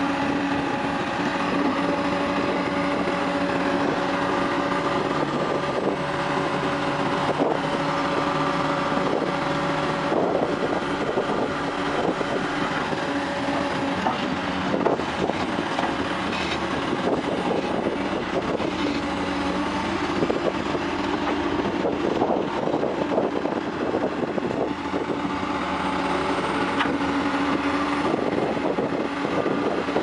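Caterpillar 345CL excavator's diesel engine running steadily under hydraulic load, with occasional metal clanks from the bucket and machine.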